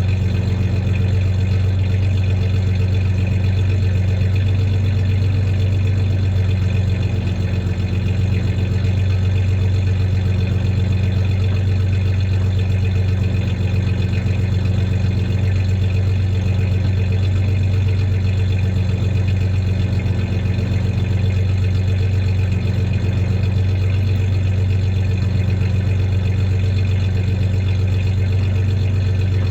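1993 Ford Ranger's 3.0-litre V6 idling steadily with a slight misfire.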